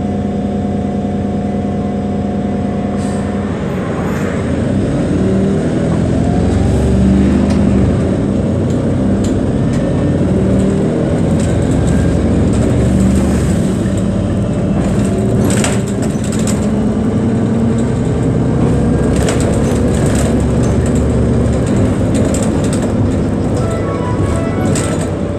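City bus heard from inside the cabin: the engine idles steadily at a stop, then about three and a half seconds in it pulls away and accelerates. The engine note rises and falls through the gears over a steady road rumble, with a few rattles and clicks.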